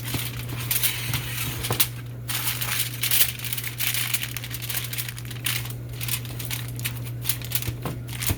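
Aluminium foil crinkling and crackling as it is pressed and crimped tightly around the rim of a baking dish, over a steady low hum.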